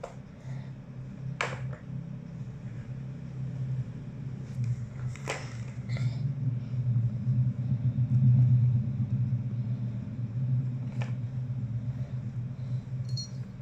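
Plastic balls rolling round the circular tracks of a three-tier plastic cat track toy, a continuous rumble that swells and fades as the cat bats them along. A few sharp plastic clicks, about a second and a half in, about five seconds in and again near eleven seconds, from the paw striking the toy.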